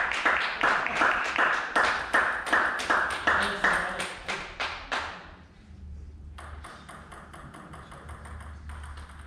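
Table tennis ball knocked back and forth between bats and table in a rally: a quick, even run of sharp pings, about three a second, that stops about five seconds in.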